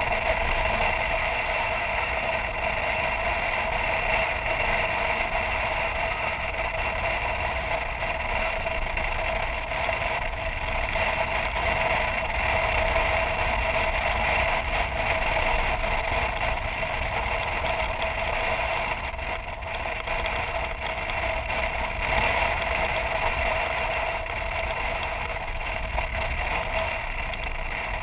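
BMW R1200GS Adventure motorcycle's boxer-twin engine running at a steady cruising pace on a dirt road, mixed with steady wind and road noise.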